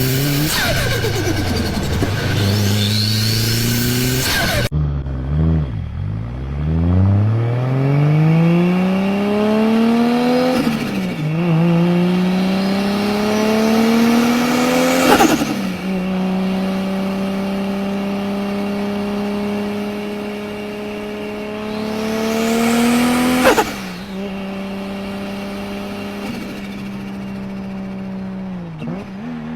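Turbocharged car engine pulling hard, its pitch climbing and then dropping sharply at each gear change or lift-off, about four times, with the turbo's flutter on each lift-off. The first few seconds are a different engine running steadily before a cut.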